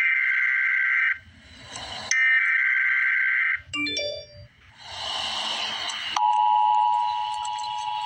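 Emergency Alert System broadcast: two harsh digital SAME header data bursts, each about a second and a half long with hiss between them. About six seconds in, the steady two-tone EAS attention signal starts.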